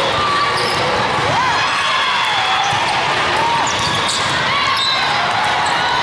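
Steady din of a large hall full of volleyball play: volleyballs being struck and bouncing off the court floor over a background of many voices and calls.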